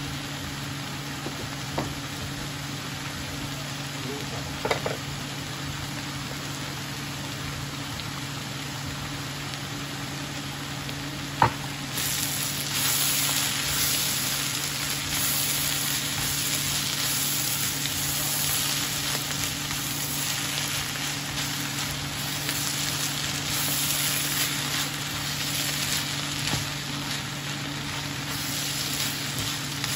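Bamboo shoots and onions sizzling in a frying pan while being stirred with a wooden spoon; about twelve seconds in the sizzle jumps louder and stays up. A steady low hum runs underneath.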